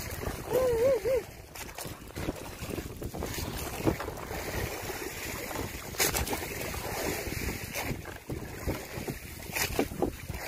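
Wind buffeting the microphone over the wash of the sea around a small boat, with a few light knocks. About half a second in comes a short wavering tone.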